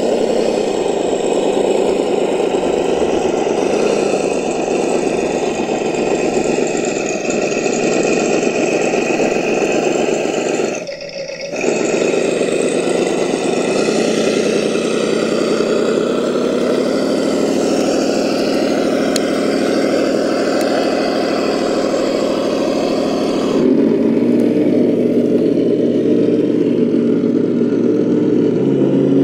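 RC crawler drivetrain, electric motor and gears, running steadily as a tracked Traxxas TRX-4 crawls over gravel and grass. The sound drops out briefly about eleven seconds in. About 24 seconds in it changes to a steadier set of tones from the Traxxas TRX-6 Mercedes-Benz G63 6x6 crawler.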